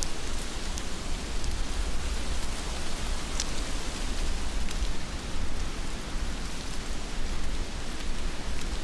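Heavy rain falling steadily, an even hiss with a few sharp ticks of nearby drops and a steady low rumble underneath.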